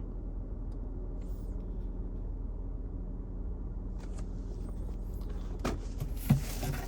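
Steady low hum in the background, then clicks and rustling of products being handled, thickening near the end.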